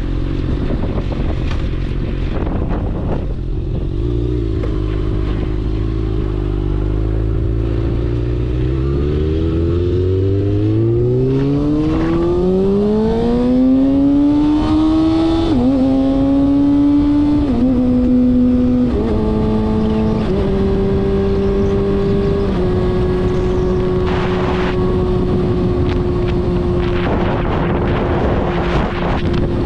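Inline-four engine pulling up from low revs, its note rising steadily for several seconds, then stepping down in pitch four times and settling into a steady drone.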